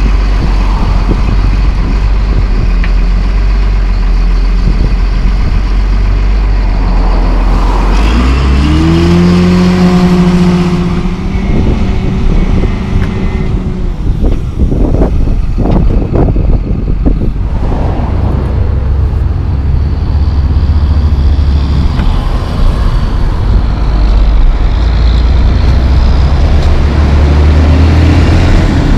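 Heavy diesel engines of a John Deere 644H wheel loader and a single-axle International dump truck running. About 8 s in, an engine revs up and holds high for a few seconds, and a few thumps follow a little later.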